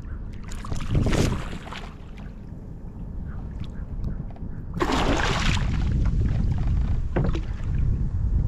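Sea water slapping and splashing against a kayak's hull, with two louder splashes about a second and five seconds in, over a steady low rumble of wind on the microphone.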